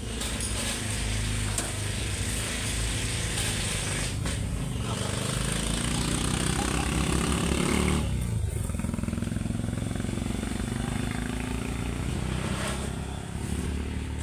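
A motor vehicle engine running close by, its pitch climbing for a few seconds as it speeds up, then dropping about eight seconds in and running on steadily. A steel shovel scrapes and crunches into loose gravel under it.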